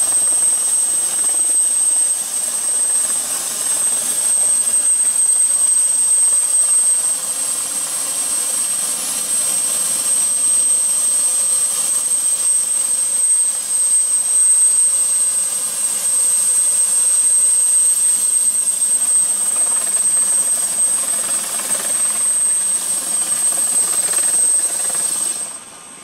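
Helicopter turbine engine and rotor running on the ground, heard from inside the cabin: a steady loud rush with a high whine held throughout. The level drops sharply near the end.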